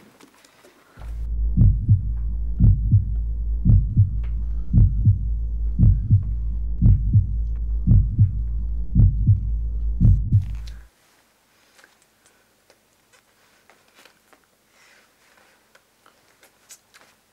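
Heartbeat sound effect: a slow lub-dub double thump about once a second over a low steady hum. It stops suddenly about eleven seconds in, leaving only faint small clicks.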